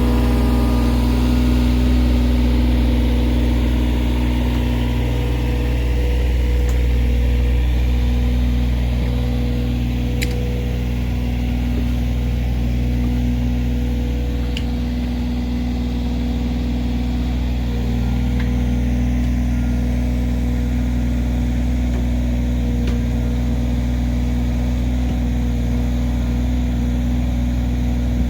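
Mini excavator's diesel engine running steadily at a constant speed, with a couple of faint sharp clicks.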